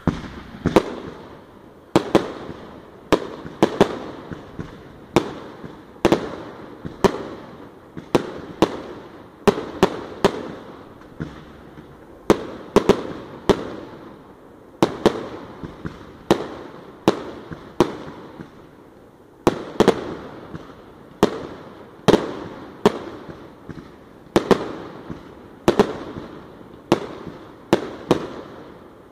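A Sunshine "King Crown" 100-shot firework cake firing: sharp shots in quick succession, about one to two a second, each with a short fading tail.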